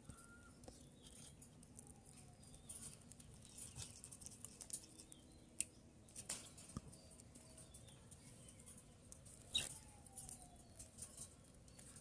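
Budgerigars, faint: a few soft chirps and short whistles among scattered small clicks and taps, with two sharper ticks about five and a half and nine and a half seconds in.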